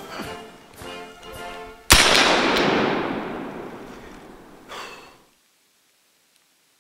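A .577 P53 Enfield rifle-musket firing a black-powder round about two seconds in: one sharp crack whose report rolls away over about three seconds. The tail of an earlier shot is fading at the start.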